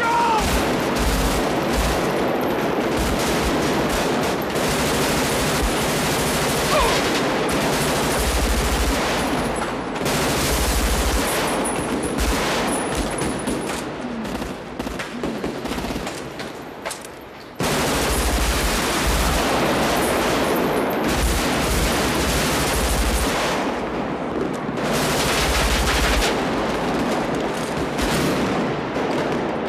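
Sustained automatic gunfire in rapid, overlapping bursts of shots. It thins out for a few seconds past the middle, then comes back at full force with a sudden loud burst.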